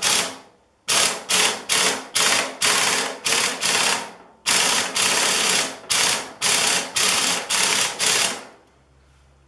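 Pneumatic impact wrench hammering on a gear puller's forcing screw through a 3/4 inch socket, triggered in short bursts about two a second, stopping about a second before the end. It is working loose a tiller tine seized on its shaft.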